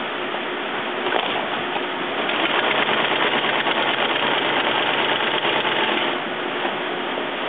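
Industrial sewing machine stitching through heavy sailcloth with a rapid, even chatter of needle strokes. It speeds up and gets louder about two seconds in, then slows again about six seconds in.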